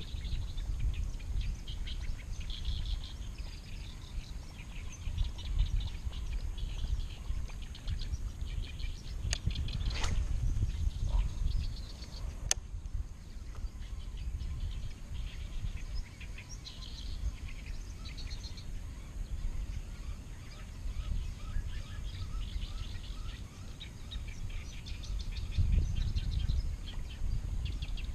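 Small birds chirping and calling on and off, over an uneven low rumble, with a couple of sharp clicks near the middle.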